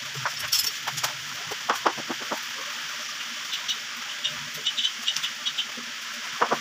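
Scattered knocks and clacks of lumber and tools being handled, over a steady hiss, with a run of short high bird chirps in the middle.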